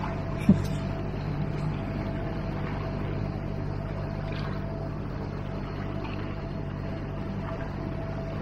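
MacGregor 26X sailboat motoring under its outboard engine: a steady low engine hum with a faint steady high note. A single sharp knock about half a second in.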